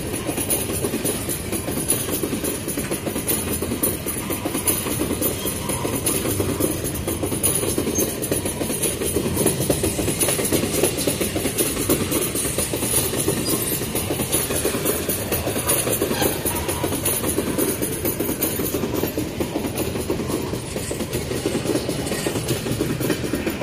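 Empty ore gondola wagons of a freight train rolling past at close range: a continuous rumble and rattle of steel wheels on the rails, with many quick knocks and clanks.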